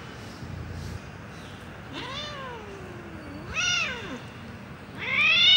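Domestic cat meowing three times in long, drawn-out calls that bend in pitch, starting about two seconds in; the last call is the loudest.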